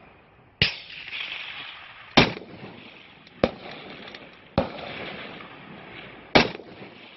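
Five shots from a 6mm Creedmoor bolt-action precision rifle fired in quick succession, about one to two seconds apart, each trailing off in a short echo.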